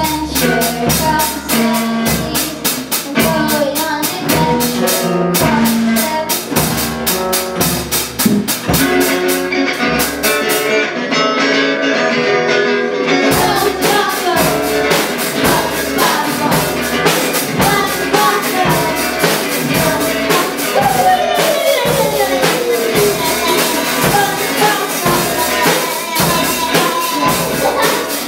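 Children's rock band playing live: a girl singing lead over strummed acoustic guitars, electric guitar and a drum kit keeping a steady beat. The drums and cymbals drop out for a couple of seconds about eleven seconds in, then come back in.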